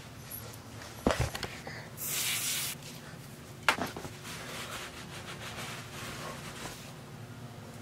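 An aerosol stain-remover can hissing in one short spray, under a second long, about two seconds in, after a few knocks of the can being handled. A sharp click follows, then a cloth scrubbing a rug softly.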